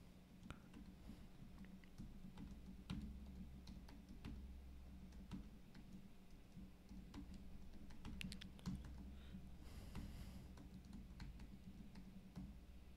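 Faint typing on a computer keyboard: irregular keystroke clicks, with a low steady hum underneath.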